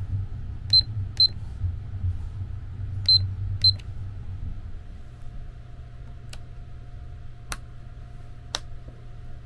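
Four short, high beeps in two pairs from a sleeper-cabin alarm clock as its set buttons are pressed, over the low rumble of the running train. A few sharp clicks follow near the end.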